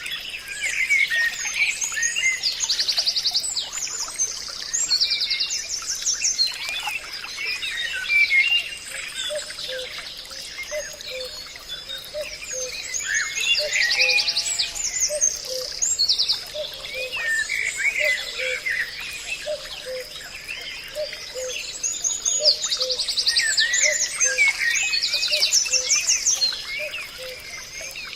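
Chorus of many forest birds chirping and trilling at once, swelling in three waves. Underneath runs a steady high whine and a low note repeating about once a second.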